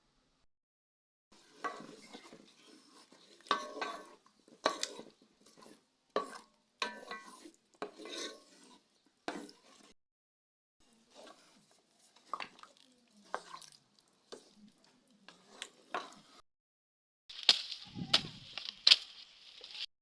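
Cooking pots and utensils being handled: a run of separate clinks and knocks with scraping between them, a pause about halfway, and a louder clatter of knocks near the end.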